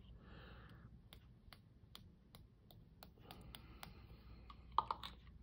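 Faint hiss of a small pump-spray bottle misting shimmer colour in two short puffs about three seconds apart, with scattered light clicks and a sharper tap near the end.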